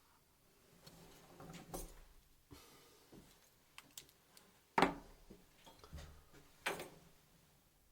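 Scattered clicks, taps and scrapes of hands and a small tool working on parts inside a desktop PC case, with the loudest knock about five seconds in.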